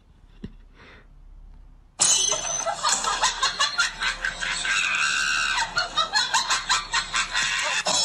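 Loud shrieking and laughter start abruptly about two seconds in, turning into choppy laughing pulses of about three a second near the end.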